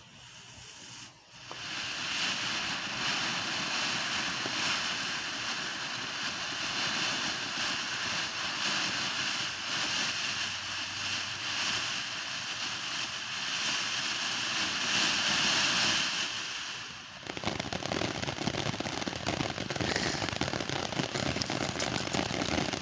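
Ground firework fountain going off: it catches about a second and a half in and hisses steadily as it sprays sparks, then about 17 seconds in switches to rapid crackling as crackling stars burst around it.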